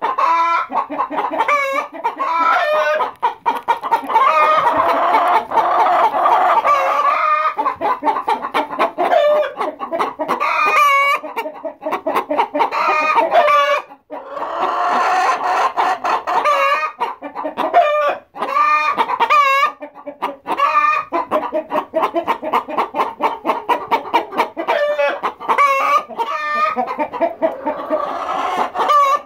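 A flock of hens clucking loudly and without pause, with a rooster crowing among them.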